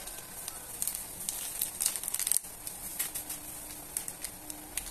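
Thin plastic glove crinkling as a gloved hand shakes seasoning over ground beef in a pot, over light sizzling and crackling of the meat frying.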